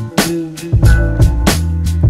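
Music with a steady drum beat and a bass line, the bass dropping out briefly near the start.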